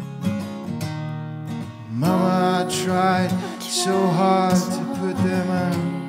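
Strummed acoustic guitar, joined about two seconds in by a man singing long, held notes with a wavering pitch.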